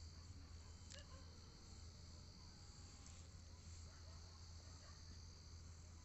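Near silence: faint steady high-pitched chirring of crickets in the background over a low hum, with one soft tick about a second in.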